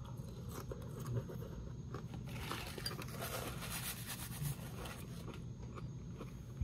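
Faint clicks of crunchy cereal being chewed, then a paper napkin rustling as it wipes the mouth, for about two and a half seconds from about two seconds in.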